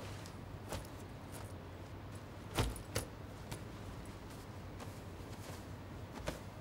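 Quiet handling sounds: a few light clicks and taps, and a louder knock about two and a half seconds in as a leather handbag is set down on a wooden bench. A low steady hum runs underneath.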